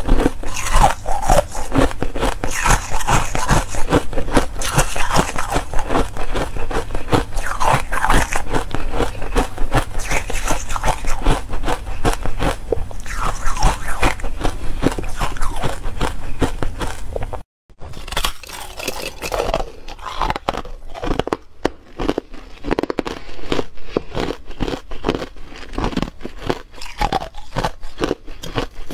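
Person biting and chewing buckwheat ice, a dense run of crunching and cracking bites, broken by a brief cut about 17 seconds in.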